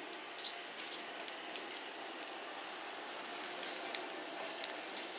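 Distant JR West 227 series electric train approaching: a steady running noise without much change. Scattered short, sharp high ticks are heard over it.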